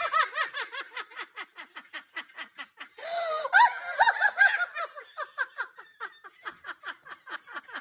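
A person laughing hard and uncontrollably in a long run of rapid, high-pitched "ha" pulses, about six or seven a second, with a louder burst about three seconds in before it tails off.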